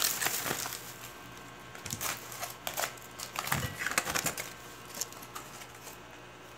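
Aluminium foil crinkling in short, scattered crackles as it is peeled open and handled, with one dull low bump about three and a half seconds in.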